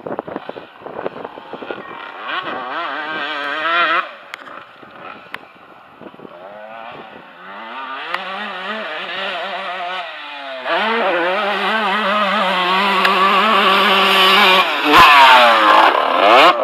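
Motocross dirt bike engines revving up and down with the throttle, pitch wavering through gear changes, dropping off abruptly about four seconds in. The engine builds again, runs high and steady, and is loudest near the end with a rising rev.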